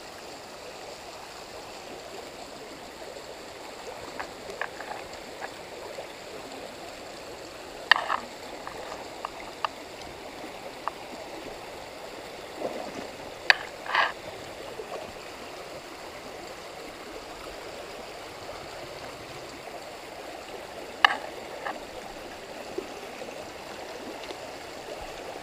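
Shallow rocky creek running steadily, with a few sharp splashes and knocks from boots wading through the water.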